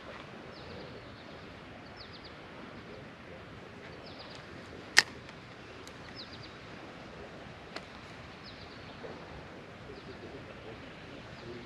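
A songbird calling outdoors: short, high, downward-sliding chirps that come every couple of seconds over a steady background hiss. One sharp click about five seconds in and a faint click a little before eight seconds stand out.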